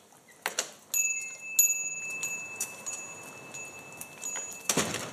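A sound-effect chime: thin, steady, high bell-like ringing with scattered light ticks and clicks, ending in a short burst of noise near the end.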